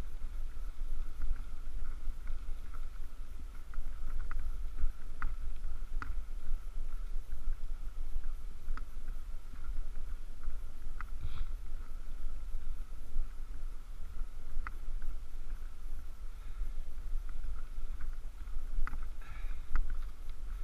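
Wind and road rumble on a camera microphone carried on a bicycle riding up a tarmac road, with scattered light clicks.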